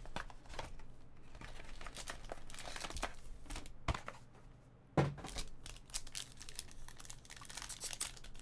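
A foil-wrapped Topps Tier One trading card pack is handled and torn open, the foil crinkling and tearing in short crackly bursts. There is a sharp knock near the middle, then a louder one about five seconds in, after which the crinkling grows dense.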